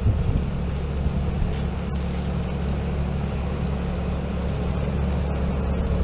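Tractor diesel engine running steadily close by, a continuous low drone with an even pitch.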